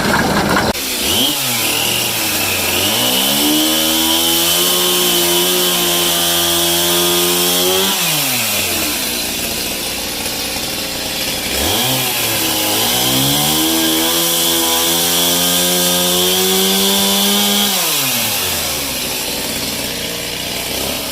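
Engine-driven saw revving up, holding at speed through a cut for several seconds, then dropping back, twice, with a thin high whine while it runs.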